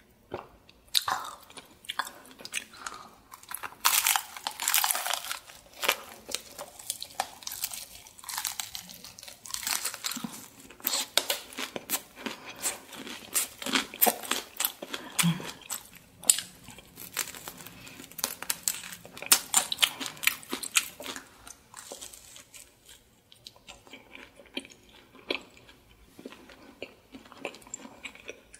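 Close-miked crunching and chewing of seasoned fried chicken: crisp bites into the coating, one after another, with wet chewing in between. The crunching thins out for a few seconds near the end.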